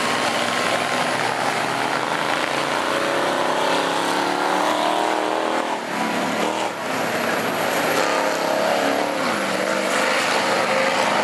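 Engines of several racing school buses running hard together, their pitch rising and falling as they rev and ease off through the turns.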